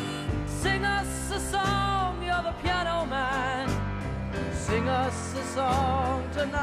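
Music: a harmonica plays a wavering melody over piano and bass in the instrumental break of a soft-rock song.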